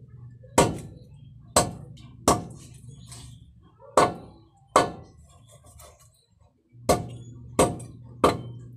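A large knife chopping a grouper into pieces on a wooden chopping board: about eight hard chops at uneven intervals, each a sharp knock.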